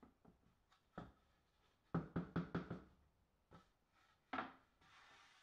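Faint wooden knocks and clatter as a routed panel is lifted off a plywood router table: one knock about a second in, a quick run of five around two seconds, and one more near the end.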